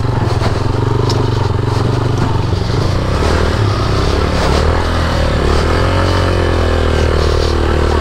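Motorcycle engine running at low speed, a steady low rumble whose pitch wavers slightly up and down in the second half.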